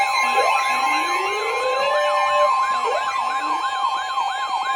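Electronic emergency sirens sweeping rapidly up and down in pitch, about three sweeps a second, layered over a steady two-tone alert signal, with a slower rising siren glide in the first couple of seconds. The steady pair of tones is the EAS-style attention signal that opens a severe thunderstorm warning broadcast.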